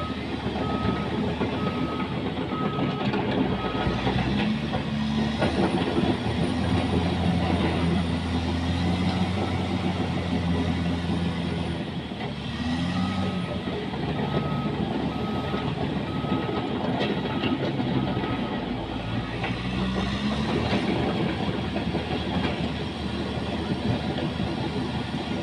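Caterpillar bulldozer's diesel engine working under load, its pitch rising and falling several times, over a continuous rattle and clatter. A reversing alarm beeps steadily for the first few seconds and again for a few seconds midway.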